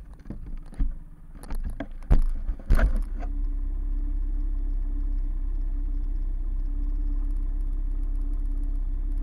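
A few irregular knocks and clicks over the first three seconds, then a snowbike's motorcycle engine idling steadily.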